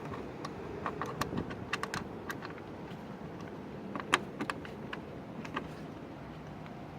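Scattered light clicks and clinks of hand tools working on the engine, with one sharper click about four seconds in, over a steady low hum.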